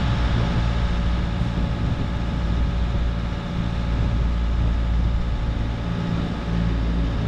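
Bobcat T66 compact track loader's diesel engine idling steadily while its arm holds a load.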